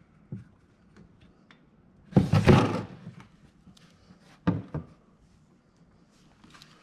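Handling noise of the oil drain bolt being backed out of an ATV engine: scattered faint clicks, a loud metallic clatter lasting under a second about two seconds in, and two knocks a couple of seconds later.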